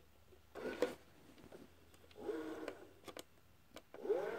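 Panasonic NV-MS1 S-VHS camcorder's tape mechanism: a few mechanical clicks and a short whirr, then near the end a motor whine that rises in pitch and settles into a steady hum as the tape starts fast-forwarding.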